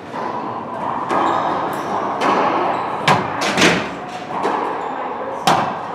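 Racquetball rally: sharp smacks of the hollow rubber ball off racquets and the court walls. The loudest come about three seconds in, again half a second later, and once more near the end.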